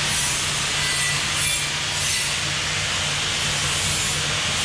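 Steady hiss over a low, even hum from a machine running without pause.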